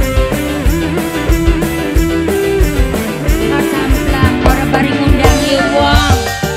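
Live tarling-dangdut band music with electric guitar prominent over a steady drum beat.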